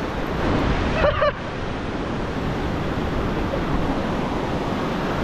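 Ocean surf washing in over a flat sandy beach, a steady rushing wash with wind on the microphone; a short pitched call cuts in briefly about a second in.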